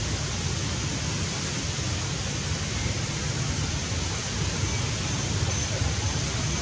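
Steady rushing noise with a heavy, fluctuating low rumble underneath, even throughout, with no distinct calls or knocks.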